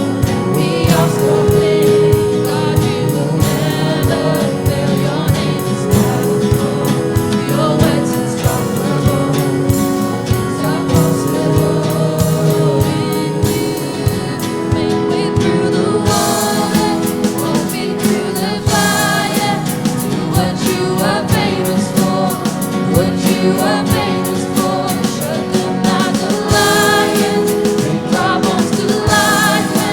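Gospel worship choir singing in harmony with a band accompanying them, over a steady drum beat.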